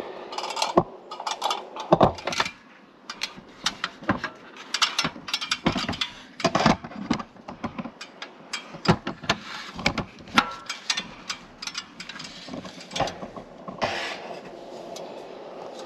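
Irregular metallic clanks and knocks from a Little Giant Leveler aluminium ladder as a person climbs it, then steps and shuffles onto sheet-metal roof panels.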